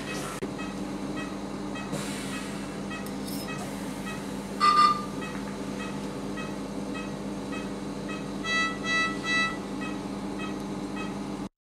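Operating-room patient monitor beeping softly and regularly over a steady equipment hum. A single louder tone sounds about halfway through, and three louder, higher beeps come near the end. The sound cuts off suddenly just before the end.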